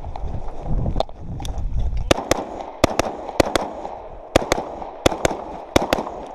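Semi-automatic AR-style rifle firing a fast string of about twenty shots, some in quick pairs, with short breaks between runs.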